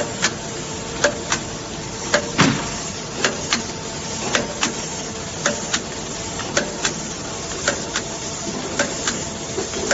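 TS-800B double-sided tape applicator running: a steady mechanical whir from its belts and rollers. Over it comes a sharp double click about once a second, at the same pace as the box blanks feeding through. About two and a half seconds in there is a single heavier thump.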